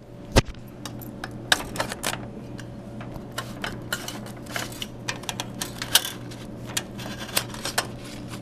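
Dollar bills being pulled and handled at a vending machine's bill acceptor: irregular clicks, knocks and paper rustling over a steady low hum.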